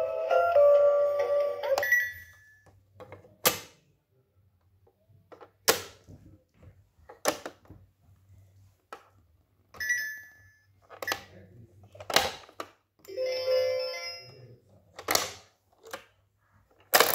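Plastic pop-up toy: a short electronic tune ends about two seconds in, followed by a string of sharp plastic clicks and snaps as its buttons are worked and the spring-loaded animal lids pop open and are pushed shut, with a brief electronic toy sound partway through.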